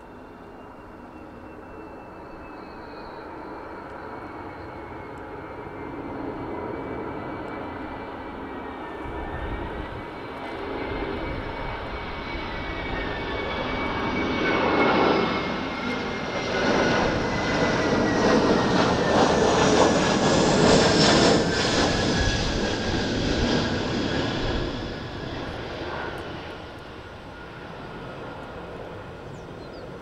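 Airbus A321-211 jet airliner on final approach flying past, its two CFM56-5B turbofan engines growing louder, loudest for several seconds in the middle as it goes by, then fading as it moves away. A high engine whine runs through it and slides slowly down in pitch as the aircraft passes.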